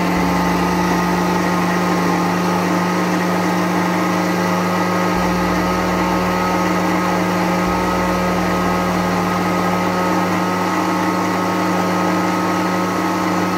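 Electric countertop blender motor running steadily with a constant hum, pureeing fresh strawberries and sugar in a glass jar before the milk goes in.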